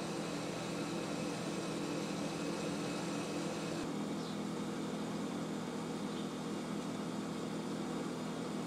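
Steady mechanical hum with an even hiss, like a kitchen fan or appliance running. It changes slightly about four seconds in.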